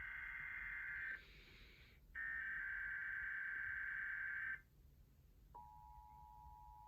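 Emergency Alert System SAME header data bursts, a buzzy digital screech, heard twice with a short hiss between them. About five and a half seconds in the steady two-tone EAS attention signal begins, announcing the alert that follows.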